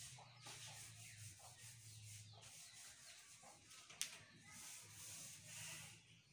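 Faint rubbing and handling noise from a phone being swung around while filming, over a low hum, with one sharp click about four seconds in.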